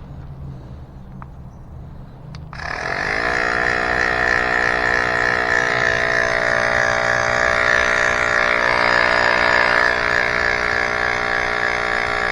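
A few clicks, then about two and a half seconds in a small electric air pump starts: it spins up quickly and runs with a steady buzzing hum while it inflates a bicycle inner tube.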